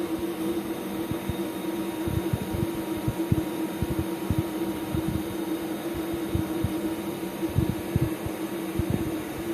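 MIG welding of steel with an inverter MIG welder: a steady machine hum with an irregular crackle of the welding arc running through it.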